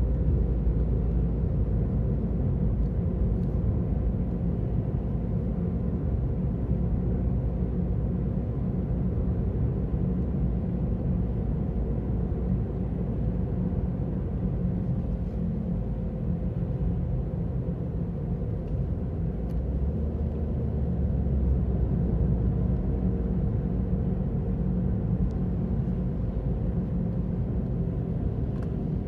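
Ravon R4 (Chevrolet Cobalt) on the move, with a steady low hum from worn wheel hub bearings under the road noise. The bearings are due for replacement.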